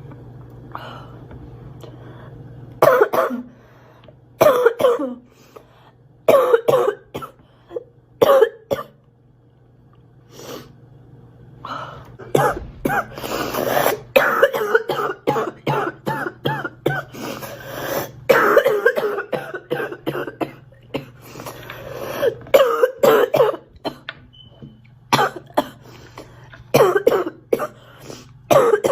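A girl coughing: a few single coughs about a second apart, then, after a short pause, long fits of rapid coughs one after another, and more coughs near the end.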